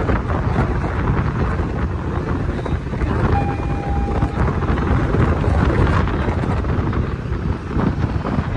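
Passenger ferry under way on open sea: wind buffets the microphone over the boat's steady engine and water noise. A brief steady tone sounds about three seconds in.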